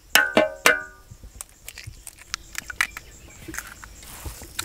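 Eggs rapped against the rim of a large metal cooking pot: three quick knocks that ring briefly within the first second. Then come scattered small cracks and clicks as the shells are broken open over the marinated mutton.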